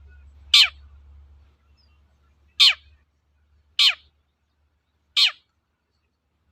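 Long-tailed shrike (cendet) giving four short calls a second or two apart, each a quick downward sweep in pitch.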